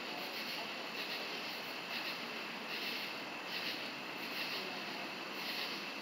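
A chorus of night-singing insects: high, rhythmic pulsing calls that repeat about once a second over a steady background hiss.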